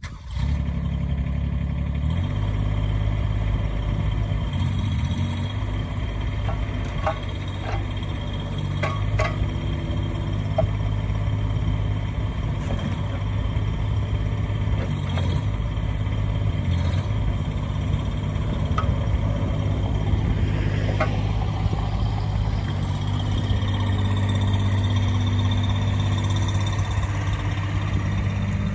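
AGT Industrial QK18K-C mini excavator's Kubota diesel engine running steadily as the boom, arm and bucket are worked. The engine note shifts about two seconds in and again near the end, with a few light clicks in between.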